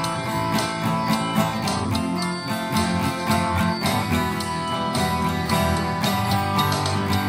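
Guitar music with a steady strummed rhythm: an instrumental break with no singing.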